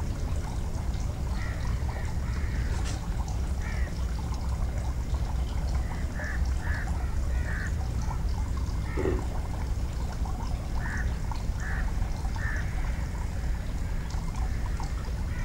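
A steady low rumble, as of a boat's motor, under short high bird calls that come singly or in pairs every second or so.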